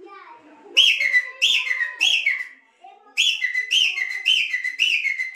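A man whistling an imitation of the grey francolin's (teetar's) call through hands cupped at his mouth: sharp whistled notes, each dropping in pitch, about two a second, in a short run and then, after a brief break near the middle, a longer run.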